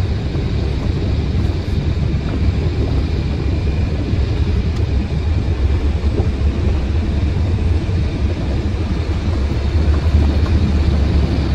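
Truck engine and road noise heard from inside the cab while driving: a steady, even low rumble with no change in pace.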